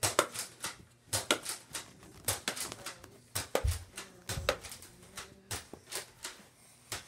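A run of irregular sharp clicks and knocks, several a second, with a couple of duller thumps near the middle.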